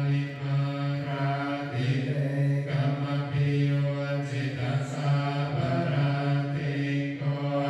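Buddhist chanting: voices on one low, steady pitch, sung in long held phrases with short breaks between them.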